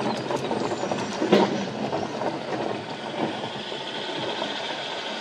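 A car rolling slowly on a gravel road, heard from inside the cabin: the tyres crunch over the engine's running, with one knock about a second and a half in. A steady high hum sets in after about three and a half seconds.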